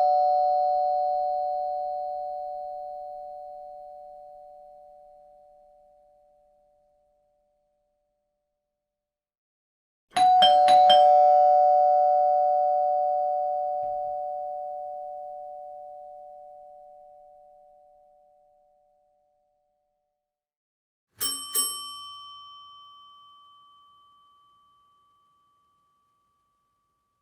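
Doorbell chimes: a two-note ding-dong falling in pitch, already ringing at the start and fading slowly, the same ding-dong again about ten seconds in, then a different, higher two-strike chime about 21 seconds in. Each chime rings out and dies away over several seconds.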